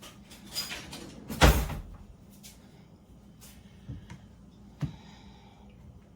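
Kitchen knocks and clatters: a loud thump about a second and a half in, then a few lighter knocks later.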